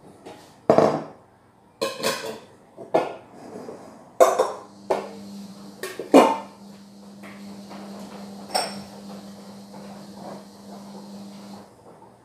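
Glass bowls and dishes clinking and clattering as they are set down and stacked: a series of sharp knocks, the loudest about a second in and again about six seconds in. From about five seconds in, a steady low hum with a faint hiss runs underneath.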